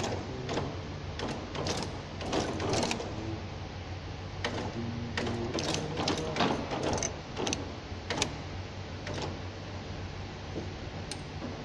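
Automatic tea bag packing machine running: a steady mechanical hum with sharp metallic clicks and clacks from its rotating heads and linkages, about one or two a second, growing sparser near the end.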